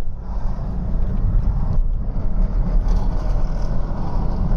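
Vauxhall Insignia engine pulling under load at low revs with a horrible flapping, rattling noise over a heavy low rumble. The sound comes from the alternator belt flapping around because the alternator's overrunning (free-running) pulley has seized.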